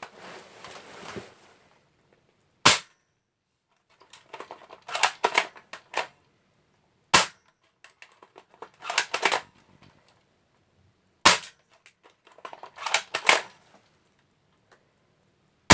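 BB gun fired four times, about four seconds apart, each shot a sharp crack. Between the shots come short bursts of clattering handling noise.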